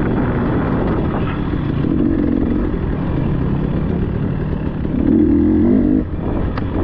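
Dirt bike engine revving up and falling back in repeated surges as the bike is ridden off-road, with a sharp knock near the end.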